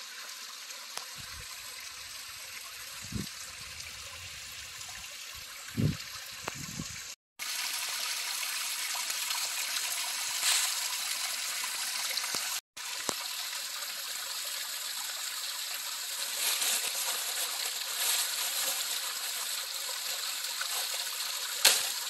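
Small woodland waterfall trickling and splashing over rock ledges at low late-season flow, a steady hiss of falling water. The water is louder after a brief cut-out about seven seconds in, and cuts out for an instant again a few seconds later. Two soft low thumps come in the first half.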